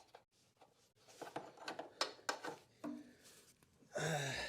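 Scattered light clicks and taps of hand tools and metal parts being handled, then a short breathy vocal sound, like a sigh or grunt, near the end.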